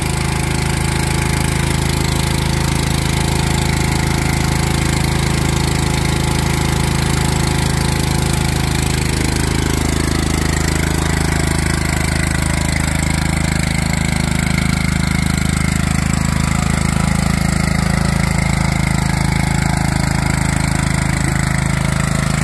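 Lawn tractor's small engine running steadily with an even, rapid firing pulse.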